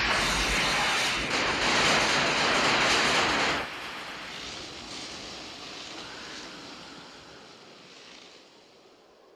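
Film sound effects played over the home-theatre speakers: a loud rushing, hissing roar as a car vanishes and leaves burning fire trails on the road. It drops off sharply about three and a half seconds in, then a thinner hiss fades away toward near silence.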